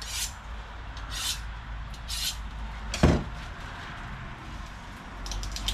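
Three short scraping knife strokes about a second apart, then one sharp knock about three seconds in, and a few light clicks near the end.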